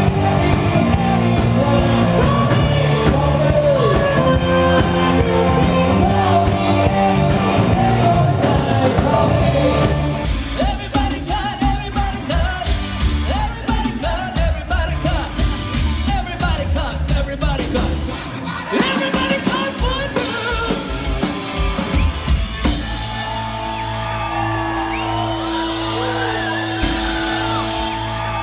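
An 80's cover band playing rock music with a singer; about ten seconds in the sound turns sparser, with a pulsing beat under the vocal line.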